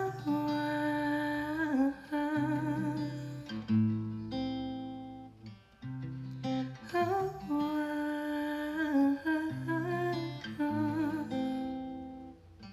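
Acoustic guitar playing chords under a wordless hummed melody with vibrato, in two similar phrases, fading out near the end.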